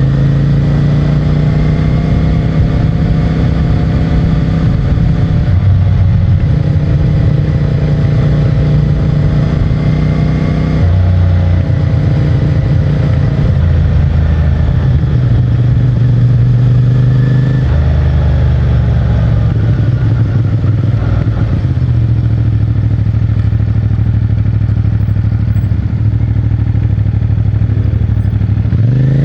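CFMOTO 450MT's parallel-twin engine and stock exhaust running under way on the road. Its note changes abruptly about 11 and 18 seconds in.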